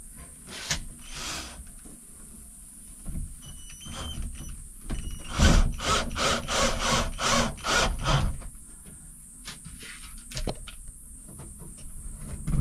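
Cordless drill driving screws up into a plywood ceiling panel, heard as runs of rapid clicking and scraping of wood with a loud knock about halfway through.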